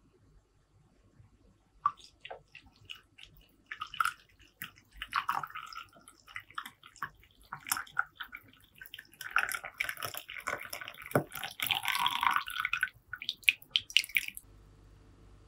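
Milky coffee poured from a small metal pot into a ceramic cup, an uneven splashing and trickling stream that starts about two seconds in, runs fullest in the second half and stops shortly before the end.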